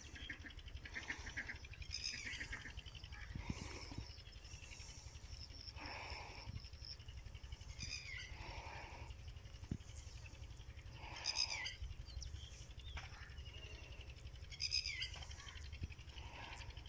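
Repeated short animal calls, one every second or two, some falling in pitch, over a steady low rumble.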